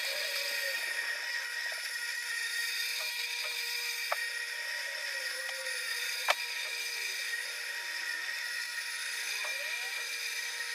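Corded electric lawnmower running with a steady hum, heard muffled through a window, with two sharp clicks about four and six seconds in.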